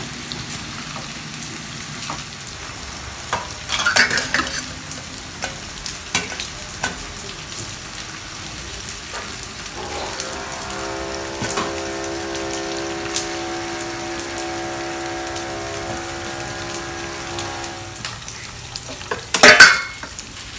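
Eggplant pieces deep-frying in hot oil in a small saucepan, sizzling steadily, while a silicone spatula stirs and scrapes against the pan and lifts pieces out into a wire strainer. A steady pitched hum runs through the middle for several seconds, and a loud clatter comes near the end.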